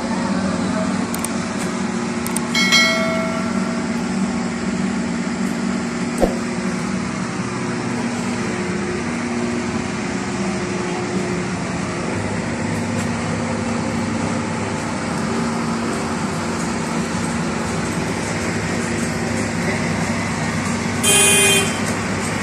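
Steady traffic noise with engines running. A vehicle horn sounds briefly twice, once near the start and once near the end.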